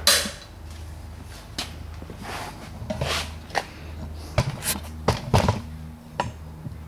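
A sharp metallic snap as a spring clip closes on a VW oil-bath air cleaner housing, followed by scattered rustling, clicks and knocks from the camera being handled and moved.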